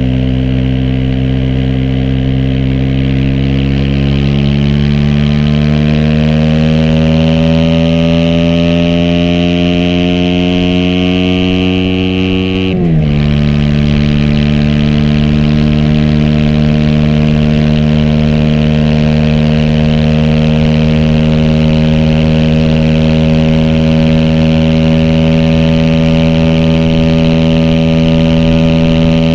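Aprilia SX 125 single-cylinder four-stroke engine through an Arrow racing header and Thunder slip-on with dB-killer, under way. The revs climb slowly for about thirteen seconds, drop sharply in a gear change, then hold steady.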